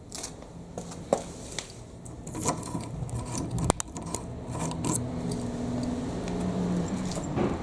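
A series of sharp clicks and knocks with some scraping, as of something being handled, over a faint low hum that grows louder toward the end.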